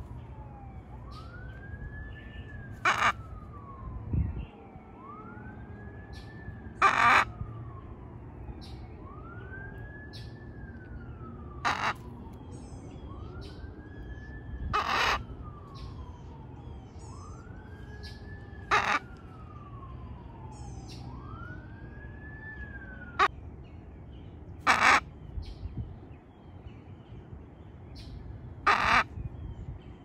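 Loud, harsh macaw squawks, short and repeated about every four seconds. Between them a whistled call that rises and then slides down in pitch repeats at about the same pace.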